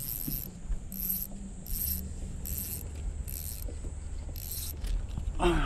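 A fishing reel being cranked to bring in a hooked stingray: six evenly spaced high whirring bursts, about one handle turn a second.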